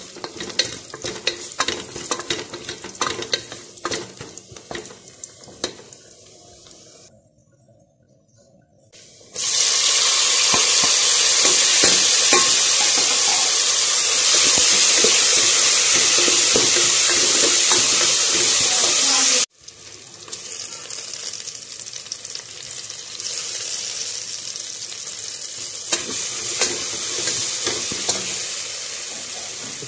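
Hot oil crackling with mustard seeds, shallots and curry leaves while a wooden spoon stirs and scrapes a steel pot, with many small clicks. About nine seconds in, a loud steady sizzle starts as chopped tomatoes fry in the oil. It cuts off abruptly about twenty seconds in, and a quieter sizzle with stirring follows.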